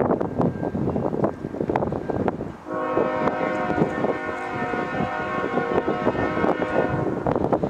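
Wind buffets the microphone, then about three seconds in the lead locomotive, a CN GE ES44AC, sounds its multi-chime air horn in one long, steady blast of about four and a half seconds that stops shortly before the end.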